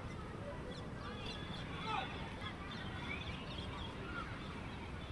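Quiet outdoor ambience: a steady hiss with scattered short, faint high chirps, one a little clearer about two seconds in.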